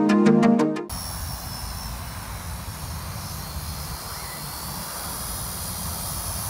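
Electronic music cuts off about a second in. A small foldable quadcopter drone (YH-19HW) follows, a steady thin propeller whine that wavers in pitch, with wind rumbling on the microphone.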